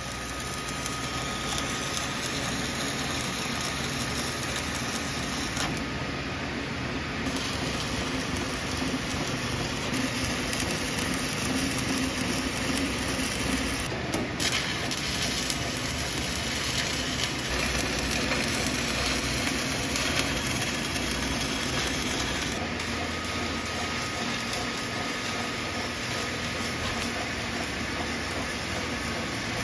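Stick welding arc with 7018 electrodes crackling and sizzling steadily as overhead welds are run, with a couple of brief lulls.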